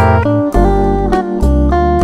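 Instrumental background music: guitar notes over a bass line, the notes changing about every half second.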